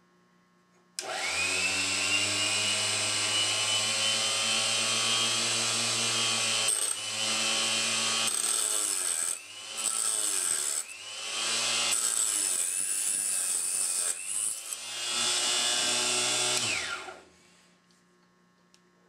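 A small Harbor Freight mini chop saw starts suddenly and runs with a steady high-pitched motor whine while its blade cuts through a .40 S&W brass case. The pitch and level dip several times as the blade bites into the brass. It is switched off near the end and winds down.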